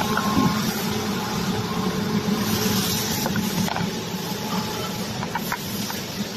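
Four-head CNC wood router running, its spindles machining wood: a steady hum with hiss.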